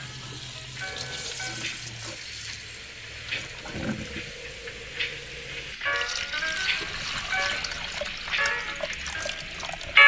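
Intro music: a hissing wash of noise with a few faint notes, then a clear rhythmic pattern of short melodic notes coming in about six seconds in.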